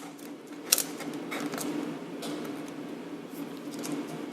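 Small metallic clicks and taps of a wrench working a small nut off a ground-wire terminal, the sharpest about three-quarters of a second in, over a steady low hum.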